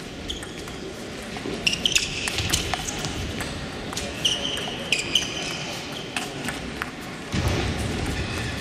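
Table tennis ball knocking off bats and table in a rally, sharp irregular clicks with a short high ring, coming in clusters about two and five seconds in.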